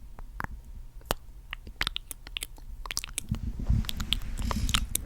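Close-up ASMR mouth sounds: scattered wet lip smacks and clicks from lips coated in gloss, with a low rumbling noise joining about three seconds in.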